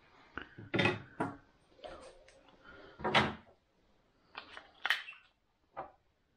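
Battery compartment cover of a Bosch GPL 5 G laser being unclipped and handled on a hard worktop: a series of sharp plastic clicks and knocks.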